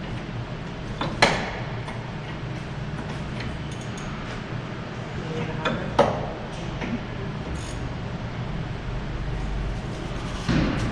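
Two sharp metallic knocks with a short ring, about five seconds apart, from tools striking metal during suspension work, over a steady low hum. More knocks follow near the end.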